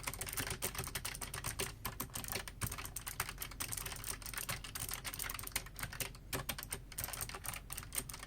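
Continuous fast typing on a Keychron K5 ultra-slim mechanical keyboard with clicky blue switches: a dense run of key clicks.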